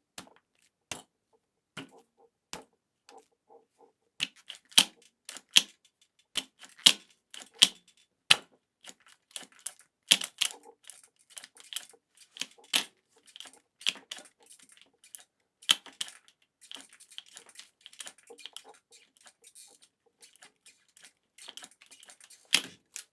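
Hands working a bicycle's handlebar: a string of irregular sharp clicks and rattling clunks. Sparse at first, they come thick and louder from about four seconds in.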